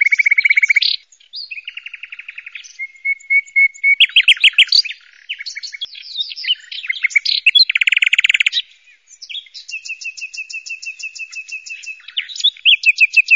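Pet budgerigars chattering in their cage: fast runs of high chirps and buzzy trills, broken by a couple of short pauses.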